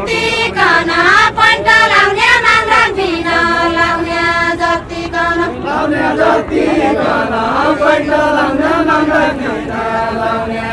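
Unaccompanied Deuda folk singing: voices chanting a slow, repeating melody line with long held notes.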